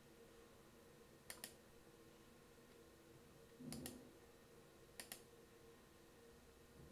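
Computer mouse clicks: three pairs of quick, sharp clicks about a second and a half apart, the middle pair with a soft thump, over faint room hum.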